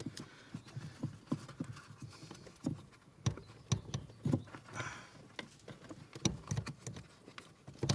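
Irregular clicks and knocks of car parts and tools being handled during hand work on a steering column, with a brief rustle about five seconds in.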